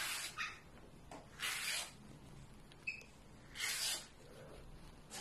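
A hand smoothing and pressing a combed-out fringe of single-strand macrame cord flat on a table: three short rustling rubs of the fingers across the fibres.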